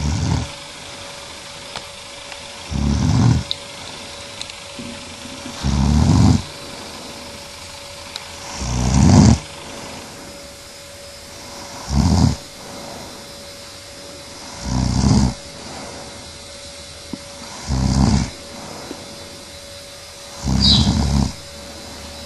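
A woman snoring in her sleep: a low, rough snore about every three seconds, eight in all.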